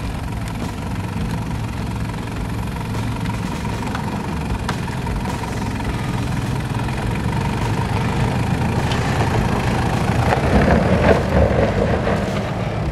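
Toyota Land Cruiser Prado 90 Series crawling over a deep rut on dry dirt, its engine running steadily at low revs, with tyres working over loose dirt and stones. It grows louder about ten seconds in as the truck climbs out and comes close.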